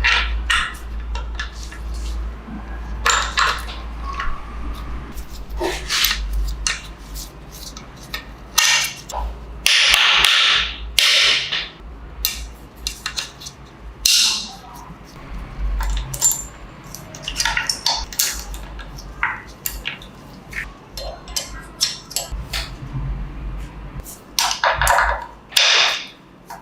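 Metal hand tools and engine parts clinking and knocking irregularly on a workbench, with a longer noisy burst about ten seconds in, over a low steady hum.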